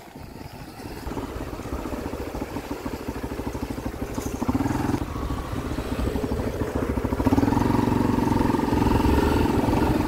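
Motorcycle engine running as the bike rides along a dirt road, heard from on board, with a fast steady firing beat. It gets louder about a second in and again about seven seconds in.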